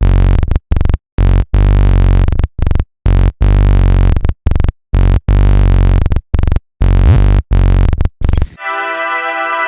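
Industrial synthesizer bass playing a choppy riff of short and longer notes, each cut off sharply with silence between, heaviest in the low bass. About eight and a half seconds in, it gives way to a sustained synth chord of many held tones.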